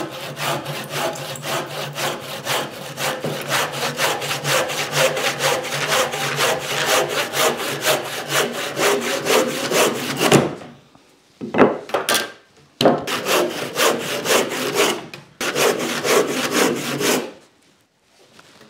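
Cheap handsaw cutting across a 4x2 timber clamped to the bench, in quick, even strokes. The sawing breaks off about ten seconds in, comes back in shorter runs, and stops a little before the end as the pieces are cut through.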